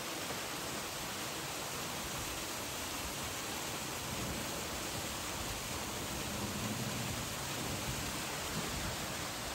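Steady rushing noise, with a low rumble that grows somewhat in the second half.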